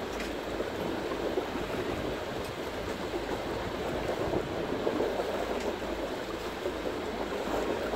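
Steady wash of water against a boat's hull at sea, with a few faint clicks and no clear tone.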